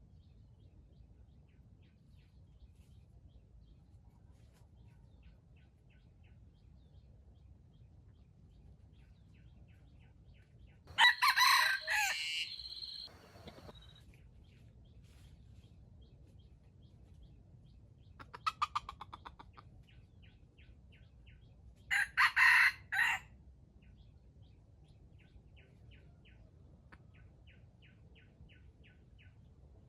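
Roosters crowing: two loud crows, about 11 and 22 seconds in, with a short run of rapid clucks near 18 seconds. Faint repeated chirps from small birds sound between them.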